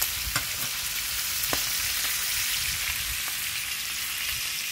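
Chuck roast searing in olive oil and butter in a non-stick frying pan: steady sizzling, with a couple of light clicks early on.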